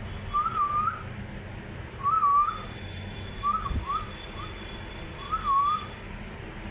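A series of about six short whistles, each sliding up and down in pitch, with gaps of a second or so between them.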